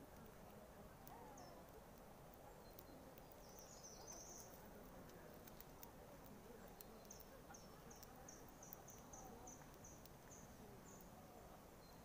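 Faint, high-pitched chirps of a small songbird over a near-silent background: a brief cluster about four seconds in, then a run of about a dozen short, even notes at roughly three a second.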